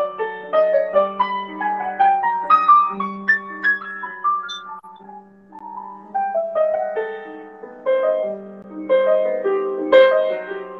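Solo piano improvisation: quick runs of notes moving up and down over a held low note. It thins out to a few quiet notes about five seconds in, then builds again to fuller, louder chords near the end.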